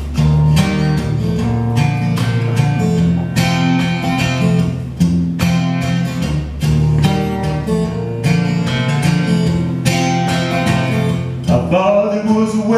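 Acoustic guitar strummed in a steady rhythm, playing a song's introduction. A man's singing voice comes in near the end.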